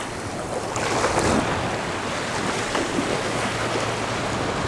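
Small surf waves washing in and foaming over the sand at the water's edge, with wind on the microphone.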